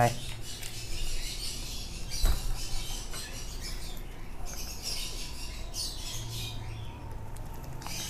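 Raspy, scratchy begging calls of a baby bird being hand-fed with formula from a syringe, coming in runs with short pauses.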